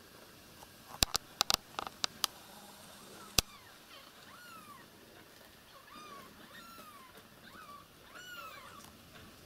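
Newborn kittens, about ten days old with their eyes still shut, mewing: short, thin, high calls that rise and fall, one or two a second, from about two and a half seconds in. A cluster of sharp clicks about a second in and a single click near three and a half seconds are the loudest sounds.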